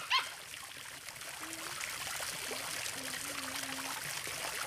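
Water running and trickling steadily, with a short rising squeak right at the start.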